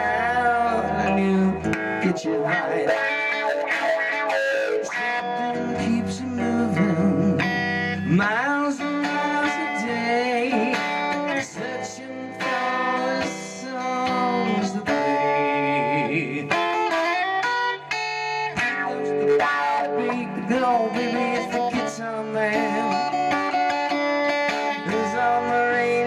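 Electric guitar played through an amplifier: an instrumental break of lead lines with many bent notes over low sustained notes.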